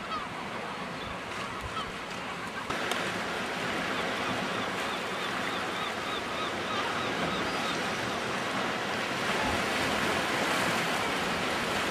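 Sea surf washing steadily, stepping up louder at a cut about three seconds in. Faint short bird calls repeat over it for a few seconds.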